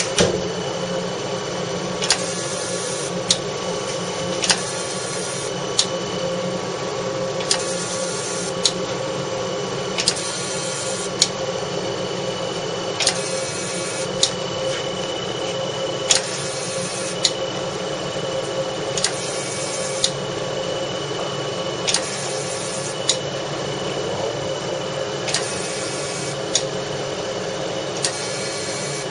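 CO2 fractional laser unit running with a steady hum. About every three seconds it goes through a cycle: a click, about a second of hiss, then a second click.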